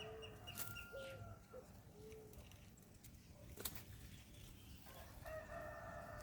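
Faint farmyard birds: scattered short clucks and calls from chickens, then a rooster crowing for about a second near the end. One sharp click about halfway through.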